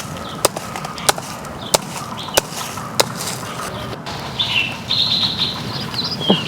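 A knife chopping into the stalk end of a jackfruit: five sharp strikes about every half second or so. Small birds chirp over the second half.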